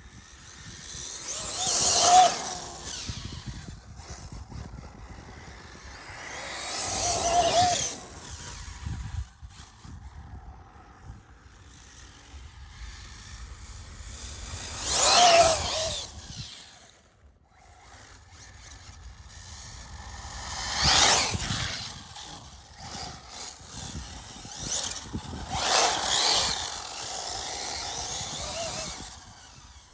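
ARRMA Typhon V5 RC buggy driven hard across grass: its electric motor and drivetrain whine rises and falls in pitch as it speeds up and passes. There are five loud passes, about two, seven, fifteen, twenty-one and twenty-six seconds in, with quieter running between them.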